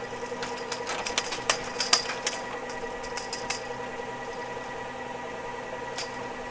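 Ski lift machinery running with a steady motor hum, with a quick run of sharp rattling clicks in the first half and one more click near the end.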